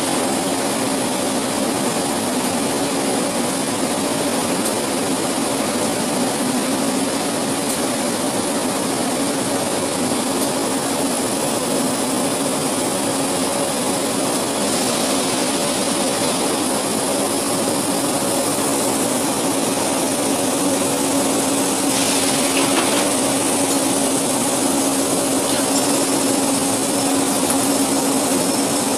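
Continuous casting machinery in a steel plant running steadily: a constant hum under a broad rushing hiss, with a brief knock about 22 seconds in.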